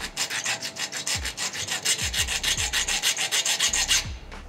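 Flat hand file rasping on the end of a piston ring in quick, even strokes, about six a second, stopping about four seconds in: the ring's end gap is being filed open to fit its cylinder.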